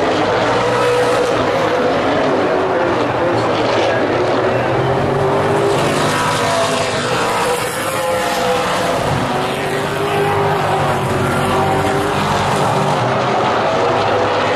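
Super late model stock cars' V8 engines racing around a short oval, their engine notes rising and falling as the cars come past and pull away.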